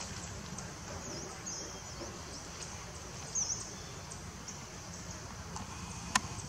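Outdoor ambience with a steady high insect-like drone and a steady low hum. Several short high chirps that dip and rise in pitch come in the first half, and a single sharp click comes near the end.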